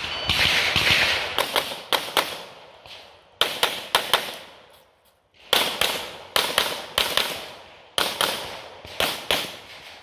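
Rapid 9mm pistol fire from a Canik METE SFT Pro, in quick pairs and short strings with a brief lull about five seconds in. The shots crack sharply and each has a short echo.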